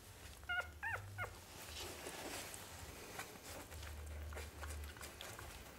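Manchester terrier puppies squeaking, three short high whimpers in the first second and a half, the second one gliding down in pitch, then faint rustling as the pups shift on their bedding.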